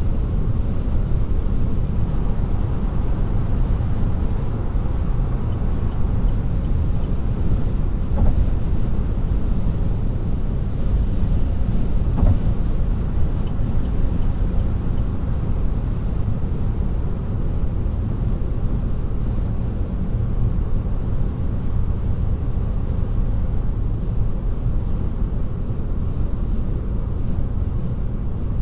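Steady low rumble of tyre and road noise from a 2018 Opel Ampera-e driving, with no engine note since the car is fully electric. A couple of faint knocks come about eight and twelve seconds in.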